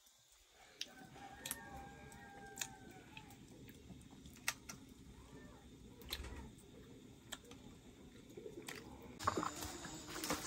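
Sparse small clicks and cracks of hands breaking open and peeling small pieces of food, over a faint low background hum. Near the end louder rustling and crackling of a bundle of dry sticks being carried takes over.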